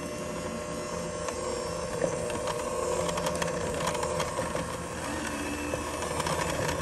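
Electric hand mixer running steadily, its twin beaters churning ground pistachios into a thick cookie batter in a stainless steel bowl.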